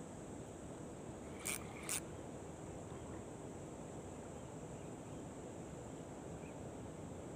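Quiet steady outdoor background hiss with a thin, high, steady tone. About a second and a half in come two short sharp clicks, half a second apart.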